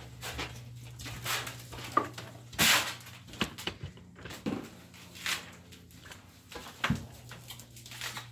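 Irregular rustles and soft knocks of movement, over a low steady hum.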